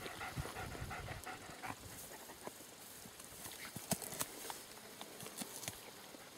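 A German shepherd sniffing and pushing through long grass, with faint panting and scattered soft rustles and small crackles.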